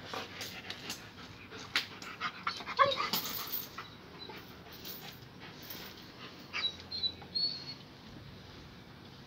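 Small black-and-tan dog panting and whimpering, with a few short, high whines about two-thirds of the way in. Clicks and rustles of a hand stroking it and handling the phone come mostly in the first half.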